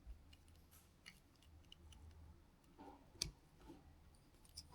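Near silence with a few faint clicks, the sharpest one about three seconds in.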